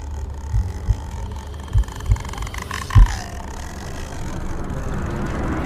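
Horror sound effect of a slow heartbeat: low thumps in pairs about a second apart over a low rumbling drone, the loudest beat about three seconds in with a falling tone. A noisy swell builds near the end.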